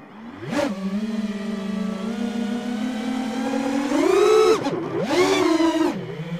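Racing quadcopter's four brushless motors and propellers spinning up with a sharp rise about half a second in, then holding a steady whine. Around four seconds in the pitch climbs as it throttles up into flight, then dips and surges twice with the throttle.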